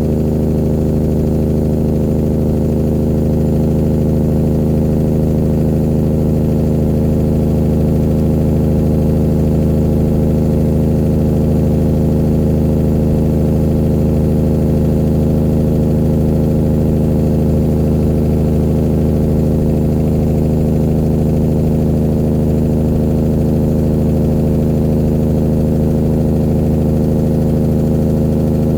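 1999 Peterbilt 379's diesel engine running steadily through straight pipes, an even, deep drone that holds one pitch throughout.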